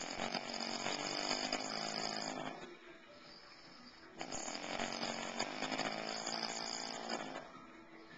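A man snoring: two long snores of about three seconds each, the first right at the start and the second about four seconds in, with a quieter breath between them.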